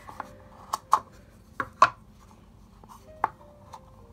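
Hard plastic clicks and knocks from a plastic travel watercolour palette being handled, as its black water containers are slid onto and off its sides. About six sharp clicks, unevenly spaced.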